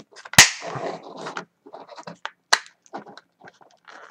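Plastic clips of a roll-off motocross goggle snapping into place as the outside cover is pushed on: two sharp clicks about two seconds apart, with scraping and rubbing of the plastic frame being handled in between.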